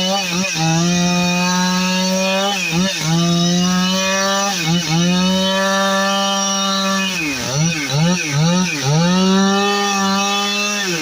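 Gas chainsaw running at high revs, its engine pitch dipping sharply and recovering several times, with a quick run of dips about two-thirds of the way through.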